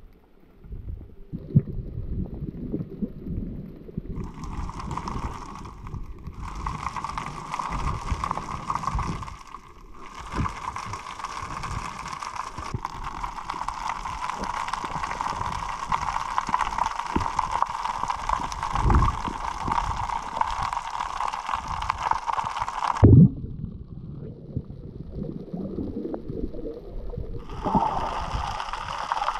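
Underwater sound picked up by a diving camera: low rumbling water movement and handling knocks, with a steady whine and hiss over much of the middle that stops abruptly. There is a sharp low thump just before the whine cuts out.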